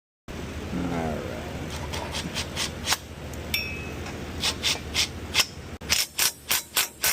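Hand ratchet on a long extension clicking in short, quick strokes as the wheel-bearing hub bolts are run in, with a metallic clink of tools on the hub about midway. The strokes come faster and more evenly near the end.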